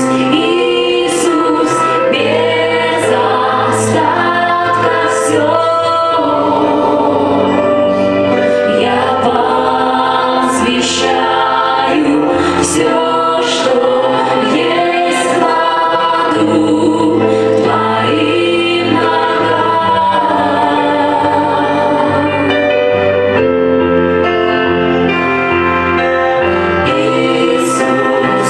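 Christian worship song: a choir singing over instrumental backing with light percussion.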